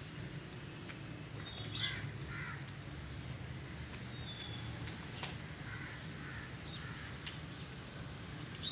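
A few short bird calls, the clearest about two seconds in and another around six seconds, over a steady low background hum, with a sharp louder sound at the very end.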